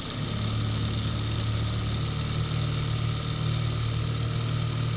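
Boat outboard motor running at trolling speed, throttled up a little: its steady hum gets louder just after the start and its note rises about two seconds in.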